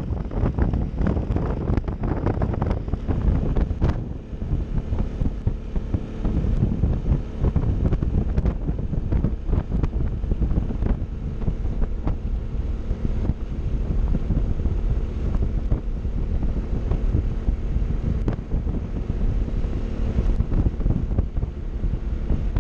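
Heavy wind buffeting on the microphone of a Piaggio MP3 scooter riding at road speed, with the steady hum of its single-cylinder engine faintly under the rush.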